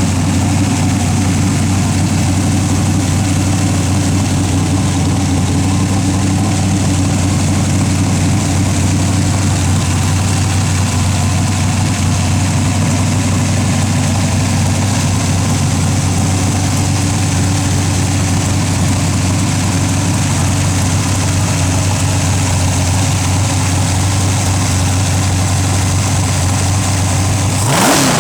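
A freshly rebuilt engine running at a steady idle, then revved briefly near the end.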